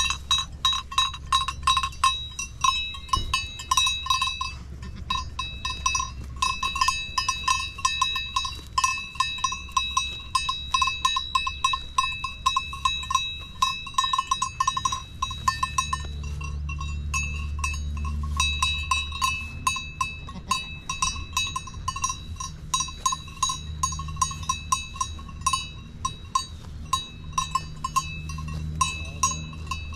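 Bells on grazing goats clanking and ringing in a rapid, irregular jangle of several strikes a second, each ringing on the same few pitches as the goats move their heads.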